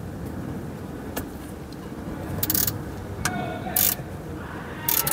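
A 10 mm ratchet spanner working a thread tap into a stripped oil-pan drain hole, cutting an oversize thread for a repair plug. The ratchet clicks in about five short bursts as the spanner is worked back and forth, over a steady low rumble.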